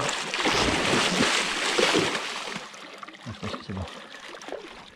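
Wels catfish thrashing at the water's surface: loud splashing that dies away after about two and a half seconds into lighter sloshing and a few dull knocks.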